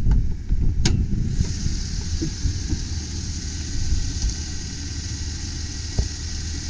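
Chevrolet Silverado 2500 pickup's engine idling steadily and smoothly, with no roughness. Two sharp clicks come in the first second, and a higher hiss joins the engine sound about a second and a half in.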